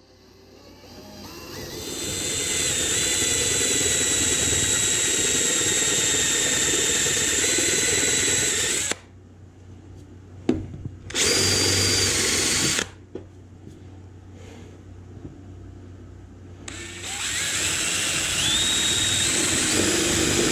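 DeWalt cordless drill boring pin holes into the bottom of a walnut shuttle body. The motor winds up over the first couple of seconds and runs steadily for about seven seconds, then stops. A short burst of drilling comes at about eleven seconds, and a final steady run starts a few seconds before the end.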